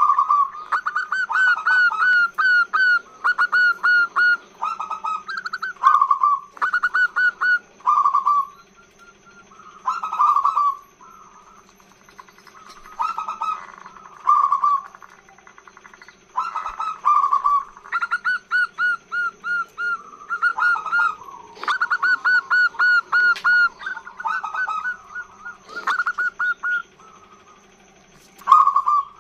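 Female zebra dove (perkutut) calling in its long song: repeated phrases of rapid, staccato cooing notes with short pauses between them. A steady faint hum lies underneath.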